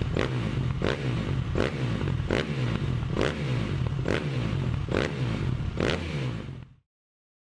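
A running engine-like mechanical sound with a sharp regular beat about every 0.8 s, cutting off suddenly near the end.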